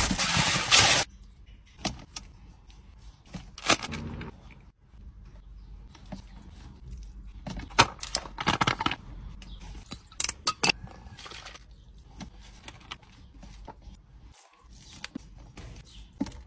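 Aluminium foil crinkling loudly in the first second as it is pulled off a food platter, then scattered rustles, clicks and clinks of a foil container and a hand working food on a steel platter, with a louder burst of handling about eight seconds in.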